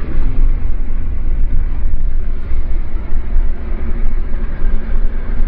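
Vehicle engine running with a steady low rumble.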